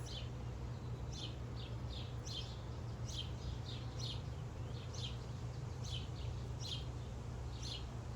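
A bird calling over and over: short, high, falling chirps, mostly in quick pairs, repeating about every second.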